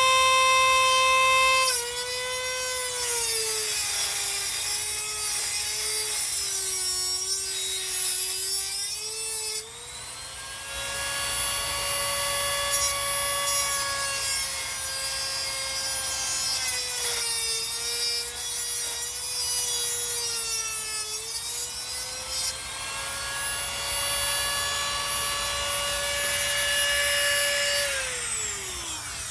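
A high-speed power tool's motor whining as it cuts through the metal of a stuck bicycle pedal. Its pitch sags and wavers while the cutter bites under load and recovers when the load eases, then winds down near the end.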